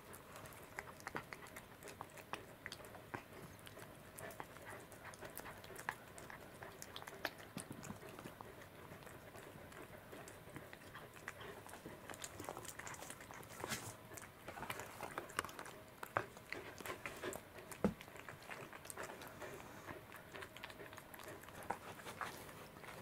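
Cat chewing and biting pieces of yellowtail: many small, quiet clicks and smacks of eating, busier about halfway through.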